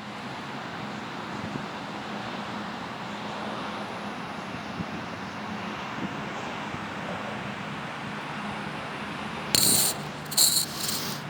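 Steady noisy rush of background machinery or traffic with a faint low hum. About nine and a half seconds in, a few short, sharp bursts of noise break over it.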